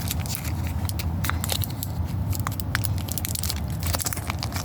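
Foil wrapper of a Pokémon trading-card booster pack crinkling and crackling in quick irregular snaps as it is torn open and worked by hand, over a steady low rumble.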